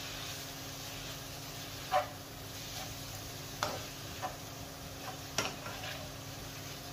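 Minced mutton and onions sizzling in a nonstick frying pan as they are stirred with a plastic slotted spatula. A few short scrapes and taps of the spatula against the pan stand out.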